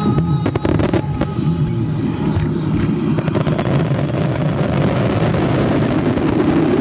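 Japanese starmine fireworks finale: many shells bursting at once, with sharp reports in the first second or so, then a dense, continuous crackling barrage.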